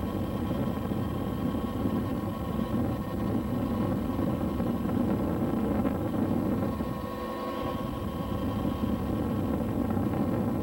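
UH-1H Huey helicopter in flight: steady engine and rotor noise heard from inside the cabin.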